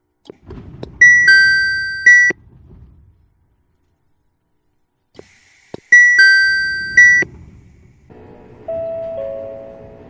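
Chichibu Railway 5000 series train door chime: a high two-note ding-dong. It comes in two bursts about five seconds apart, each ringing twice about a second apart. Near the end a softer, lower two-note chime sounds.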